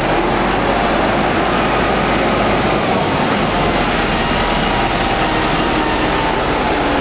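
Mercedes-Benz semi-truck's diesel engine running as the tractor-trailer moves off at low speed, a steady drone with engine tones that drift gently up and down.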